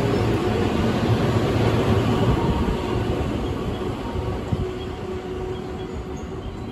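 A ten-car electric train, a JR 225 series 100 番台 set coupled to a 223 series 2000 番台 set, running away along the track. Its steady wheel-on-rail rumble fades gradually as the last car draws off.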